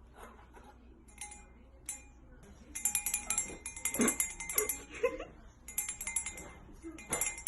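Rapid clinking and jingling of small hard objects, in dense runs from about three seconds in until the end.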